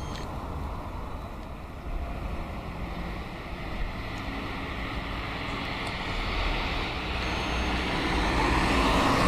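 Street traffic: a road vehicle's engine and tyre noise growing steadily louder as it approaches.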